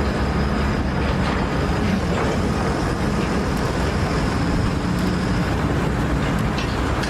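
Loud, steady machinery noise with a low hum: a large engine running.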